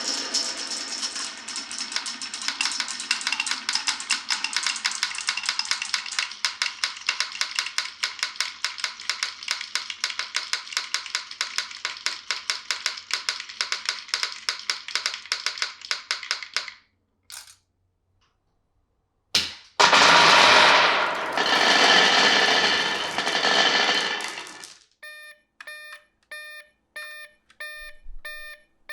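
Marbles rolling down a wooden marble run, a dense rapid clatter of clicks for about the first seventeen seconds. After a short pause and a single click comes about five seconds of loud rushing noise, and near the end a railroad-crossing warning bell starts, a pitched ding repeating about twice a second.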